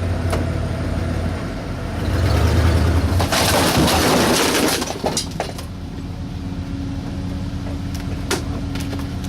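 Truck engine running, louder for a few seconds, with a loud noisy crash lasting over a second about three and a half seconds in. A few sharp knocks follow.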